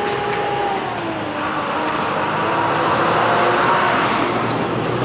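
City bus passing close by, its engine hum and road noise swelling to loudest about three to four seconds in.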